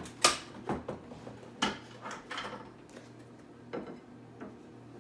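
Kitchen storage containers being handled, giving a few separate knocks and clatters, the loudest just after the start.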